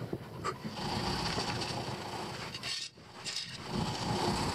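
Rubbing and scraping as a gloved hand works a bar of laundry soap into a leaking hole in a car's fuel tank from underneath, over a steady mechanical hum. The sound drops out briefly about three seconds in.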